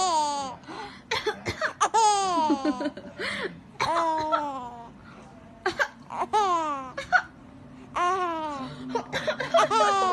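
A baby laughing in a string of high-pitched squealing laughs, each falling in pitch, about every two seconds, with short coughs from an adult between them.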